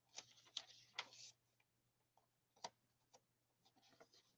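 Faint paper rustles and soft clicks as the pages of a handmade paper journal are turned by hand, with one sharper click a little past halfway.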